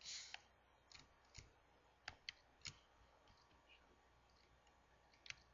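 Faint computer mouse button clicks, about six, spaced irregularly in near quiet, with a brief soft rush of noise at the very start.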